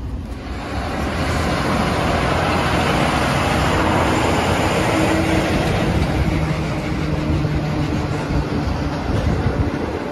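Running noise of a train passenger coach heard from inside the car: a steady rumble and rush of wheels on rail. It swells about a second in and then holds.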